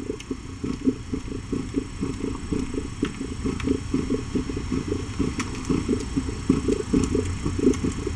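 Mother cat purring while nursing her newborn kittens: a low, rhythmic rumble, with a few faint ticks over it.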